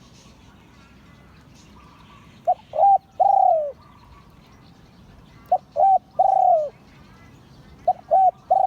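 Spotted dove cooing in three phrases about three seconds apart, each two short notes followed by a longer note that drops in pitch at the end. Faint chirping of other birds behind.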